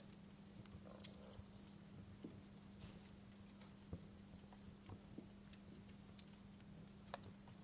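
Wood fire crackling faintly in a fireplace: scattered small pops and snaps at an irregular pace, over a steady low hum.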